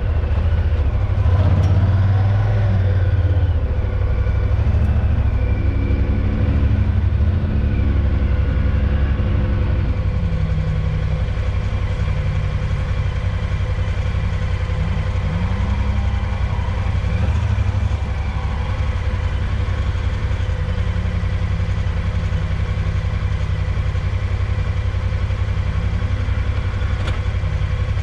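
Honda Pioneer 1000-5 side-by-side's parallel-twin engine running as it drives over sand dunes, heard from the cab, with a heavy low rumble. The engine pitch rises and falls several times as the throttle and gears change.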